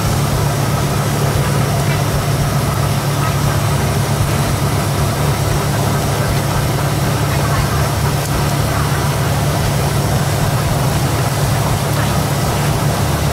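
Steady low mechanical drone, like a running engine, with an even hiss above it.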